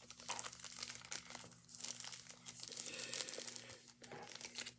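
Plastic zip-top baggie crinkling as it is handled and squeezed, a busy run of crackles with short lulls about two seconds in and near the end.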